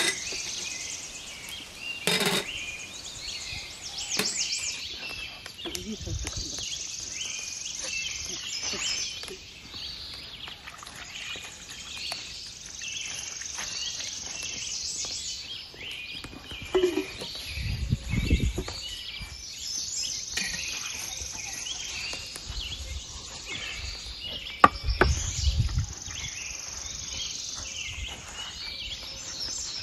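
Many birds chirping and singing steadily, with a few low thuds and a sharp knock about 25 seconds in.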